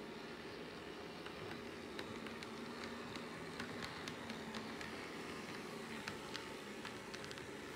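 HO scale model train running on the track: a steady low motor hum with scattered light clicks throughout.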